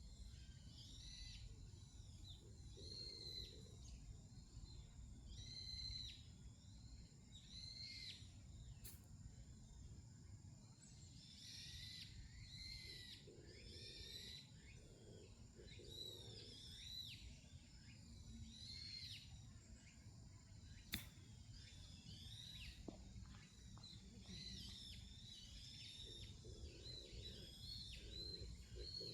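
Songbirds chirping over and over in short, sweeping high calls, over a faint low rumble of wind. A single sharp click about two-thirds of the way through.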